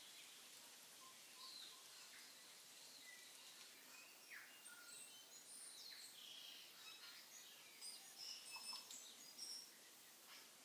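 Faint sizzling and crackling of fried onions, peas and spices in a stainless saucepan, then water poured into the hot pot, with many small high pops and pings, busiest toward the end.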